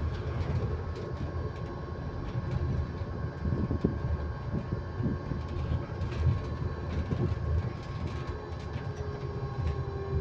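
Electric bus in motion: low road and body rumble with scattered knocks, under a steady whine held on one constant pitch, the kind of random tone electric buses sometimes make.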